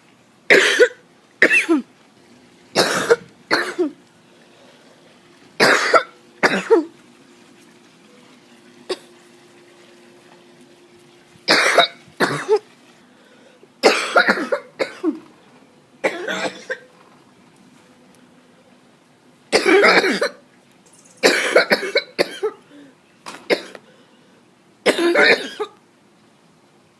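A person coughing in an allergy-triggered coughing fit: repeated bouts of two or three loud coughs, with pauses of one to a few seconds between bouts.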